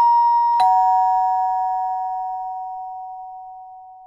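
Two-tone doorbell chime: a higher note struck, then a lower note about half a second later, a ding-dong. Both notes ring on and fade slowly together over about four seconds.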